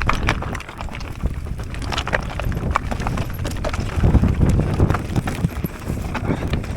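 Mountain bike descending a rough trail: tyres rumbling over dirt, with frequent rattles and knocks from the bike over bumps, loudest about four seconds in.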